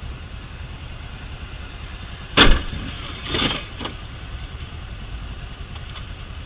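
Motorcycle running at low speed in slow traffic, a steady low rumble. A sharp bang about two and a half seconds in, then a second, rougher noise about a second later.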